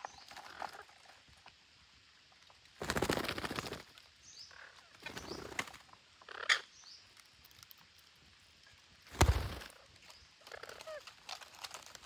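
Parakeets giving scattered short, high chirps, with one sharper call at about six and a half seconds. Two noisy flutters of wings come about three seconds in and again at about nine seconds, the second being the loudest sound.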